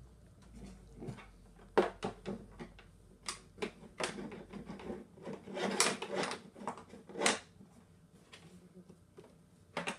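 Hard plastic clicks and knocks as the hollow plastic solution tank of a Bissell Big Green carpet cleaner is handled and turned over, its handle and cap worked. They come irregularly, several sharp ones bunched near the middle.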